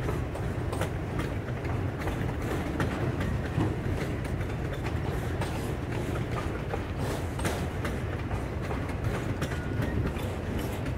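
Freight train of autorack cars rolling past: a steady low rumble of steel wheels on rail with frequent sharp clicks and clacks.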